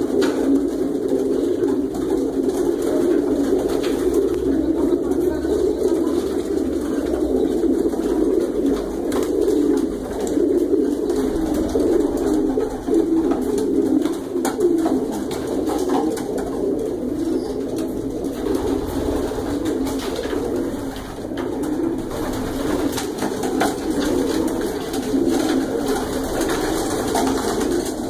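A large flock of racing pigeons cooing together, a dense, continuous chorus of overlapping coos.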